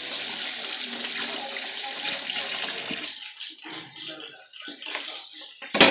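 Kitchen sink faucet running as oily hands are rinsed under it; the water stops about three seconds in. A sharp knock near the end.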